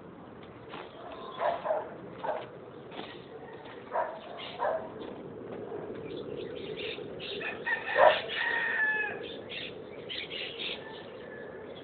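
A dog barking repeatedly in short single and double barks. About eight seconds in comes a louder, longer call that falls in pitch.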